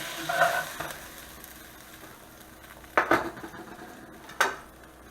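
Pork chops sizzling faintly in a cast iron chicken fryer, with two sharp knocks about three and four and a half seconds in, as of a utensil striking the pan.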